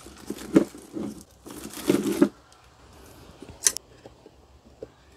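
Pliers tearing spot-welded nickel strip off the terminals of 18650 lithium-ion cells: two rough tearing scrapes in the first half, the second the louder, then a few short sharp metallic clicks.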